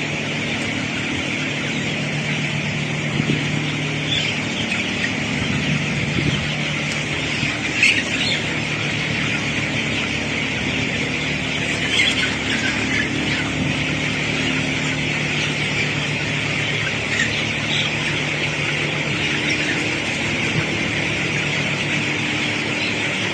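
A flock of 18-day-old broiler chicks cheeping together in a dense, constant chorus, with a few louder individual chirps standing out, over a steady low hum.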